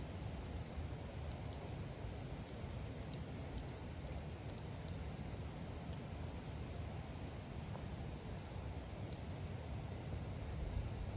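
Wood campfire burning: a steady low rush with scattered small crackles and pops.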